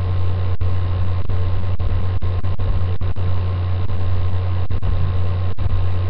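Steady low electrical hum with an even hiss, the background noise of a webcam microphone, cutting out briefly several times.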